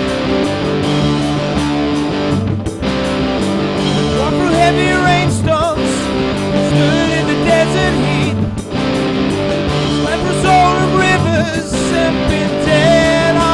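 Rock band playing an instrumental passage on electric guitar, bass and drums, with brief breaks about every three seconds. From about four seconds in a lead guitar melody bends and wavers in pitch over the band.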